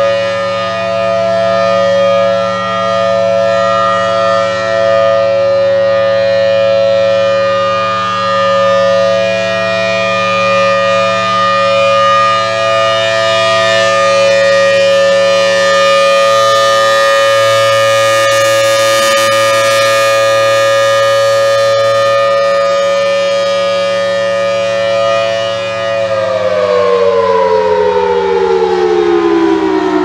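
Federal Signal Thunderbolt 1000T rotating outdoor warning siren sounding a steady wail during its monthly test, rising and falling in loudness as the horn turns. About 26 seconds in, it begins winding down, its pitch falling steadily.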